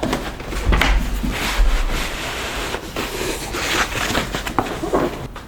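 Cardboard boxes and packaging being shifted and handled on a work surface: irregular rustling and scraping with scattered knocks and low bumps.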